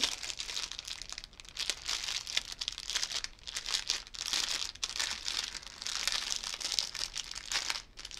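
Clear plastic bag, packed with small bags of diamond painting drills, crinkling and crackling continuously as hands handle it and work it open.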